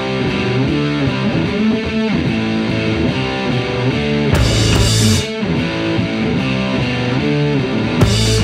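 Rock music with distorted electric guitar, with two short louder crashes, one about halfway through and one near the end.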